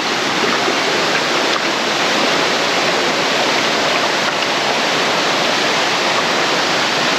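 Steady, even rush of creek water spilling over rocks at a small waterfall.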